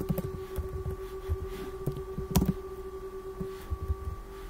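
A few scattered keystrokes on a computer keyboard, the loudest about two and a half seconds in, over a steady hum.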